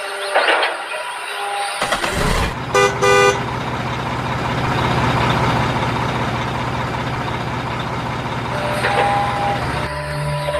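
A vehicle horn sounds a few short toots about three seconds in, over a truck engine that starts running about two seconds in and then runs steadily.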